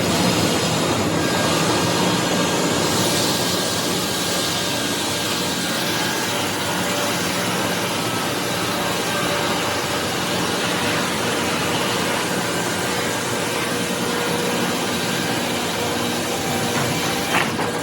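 Sawmill machinery running steadily, a loud even din of motors and conveyor chains, with one sharp knock near the end.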